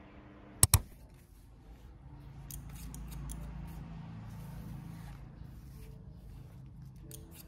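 Hairdressing scissors snipping through wet hair in short, crisp snips, after a louder sharp double click about half a second in. A low hum runs under the snips.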